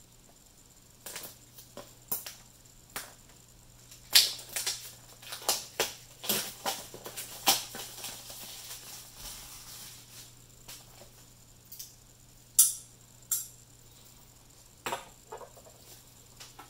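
A folding pocket knife slitting the seal of a small cardboard box, then the box being opened and handled: irregular scrapes, taps and rustles, busiest in the first half, with a few sharp clicks later.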